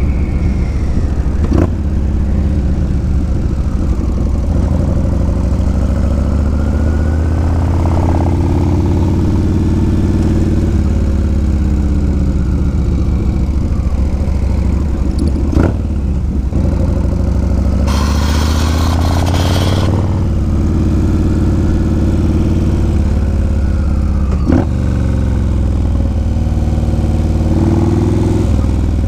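Yamaha Road Star Warrior 1700's V-twin engine running under way, its pitch rising and falling as it accelerates and eases off through the gears. There are a few sharp clicks, and a short hiss about two-thirds of the way through.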